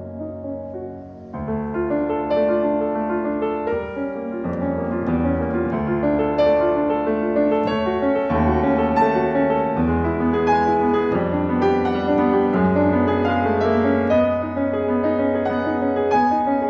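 Solo grand piano playing classical music; after a soft held chord, a louder flowing passage of many notes comes in about a second in.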